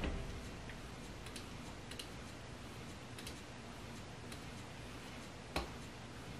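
Faint, irregularly spaced small clicks over quiet room tone, with one sharper click about five and a half seconds in.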